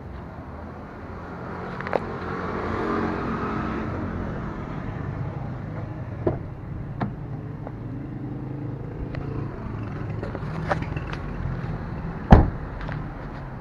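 Road vehicle noise, swelling about two to four seconds in, with a few scattered clicks and one loud sharp knock near the end.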